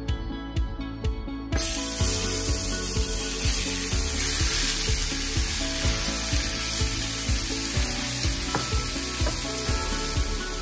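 Thinly sliced elk meat sizzling in a hot, oiled stainless-steel frying pan. The sizzle starts suddenly about a second and a half in, as the meat goes into the pan, and keeps up steadily. Background music with a steady beat plays under it.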